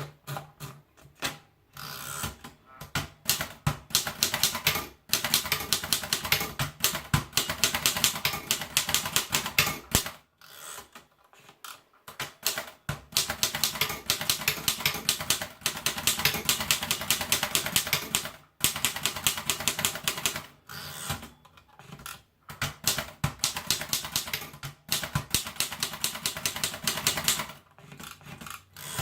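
Erika Model 5 manual portable typewriter being typed on: long runs of rapid keystroke clacks, broken by a few short pauses.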